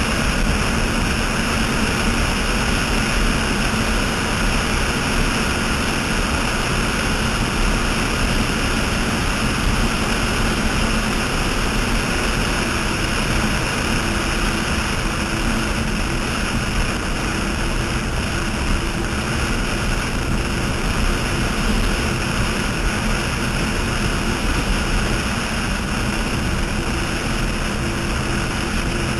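Offshore racing catamaran running at high speed: a steady drone of the engines under a loud, even rush of wind and spray.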